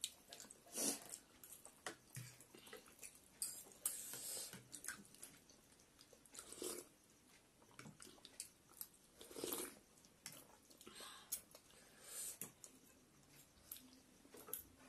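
People eating chicken thukpa noodle soup: short slurps of noodles and broth and chewing, with light clicks of forks and spoons against the bowls. The sounds come in a handful of brief bursts with quiet between.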